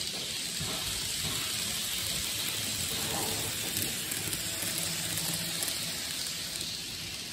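N gauge model train running along the track, a steady high rattling hiss of wheels on rail and the running motor. It grows louder through the middle and eases near the end as the train passes.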